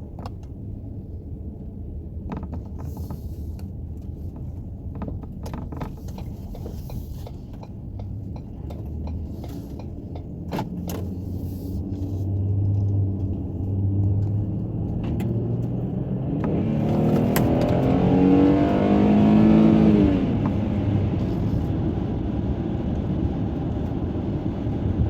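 Ford Flex's naturally aspirated 3.5-litre V6 heard from inside the cabin while driving: the engine note climbs in steps, then rises strongly about 17 to 20 seconds in and drops back at a gear change, with road and tyre noise growing as the car gathers speed. A few light clicks come in the first half.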